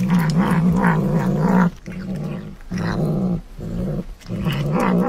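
Kitten growling over its food as it bites into a purple sweet potato: a low, wavering growl in several long stretches with brief breaks.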